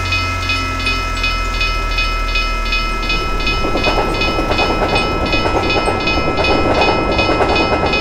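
Railroad crossing signal bell ringing steadily, about three strikes a second, over a low truck engine hum that fades in the first seconds. About three and a half seconds in, a train starts passing through the crossing, its wheels clattering louder and louder.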